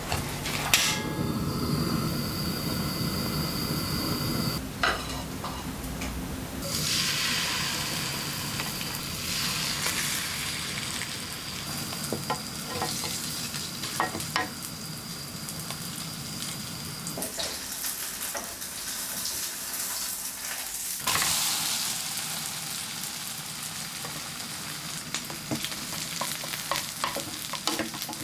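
Food sizzling as it fries in a pan, with scattered sharp clicks of a utensil against the pan.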